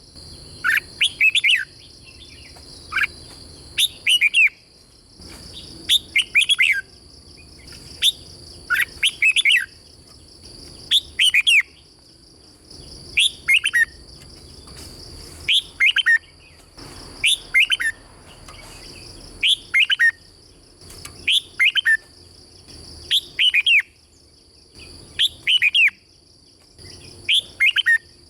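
Red-whiskered bulbul singing: short phrases of quick, downward-sliding whistled notes, repeated every second or two. A steady high-pitched drone runs underneath.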